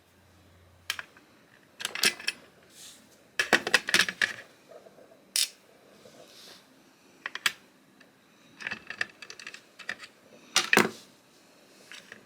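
Scattered clicks and short metallic clatters from small Torx drivers and parts of a Zero Tolerance 0562CF folding knife being handled while its pivot is unscrewed. The busiest clatter comes about three and a half to four seconds in, and another sharp cluster comes near the end.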